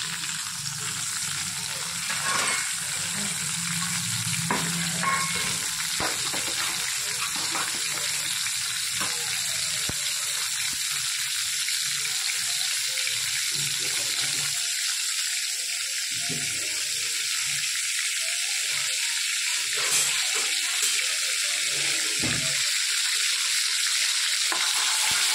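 Butter melting in hot oil in a kadai, sizzling with a steady frying hiss. Near the end a metal ladle stirs through it with a few light clicks.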